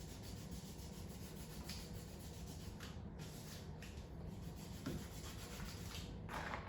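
Faint rubbing of paper being handled while glue is put on a paper craft piece, over a steady low hum.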